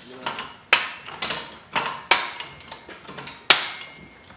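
Metal parts and tools clanking on a workbench: a string of sharp metallic knocks, each ringing briefly, the three loudest spaced about a second and a half apart.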